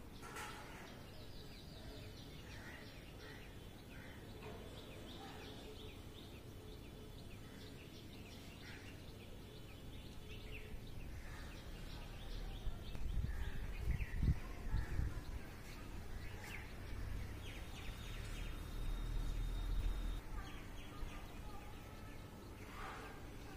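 Faint outdoor background ambience with scattered distant bird chirps. About halfway through, a low rumble swells for several seconds and then fades.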